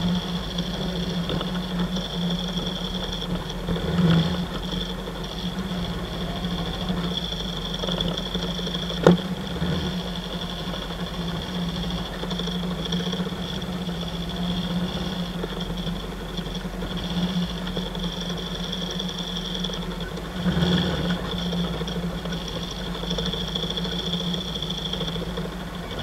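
Kawasaki KLE 500's 498 cc parallel-twin engine running steadily at low trail speed, heard from the rider's seat. A sharp knock comes about nine seconds in, and a couple of heavier bumps come from the bike going over rough ground.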